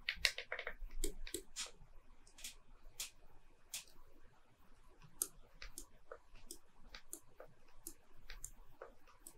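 Faint, irregular clicks and taps from working a computer while drawing digitally, about two a second with short gaps.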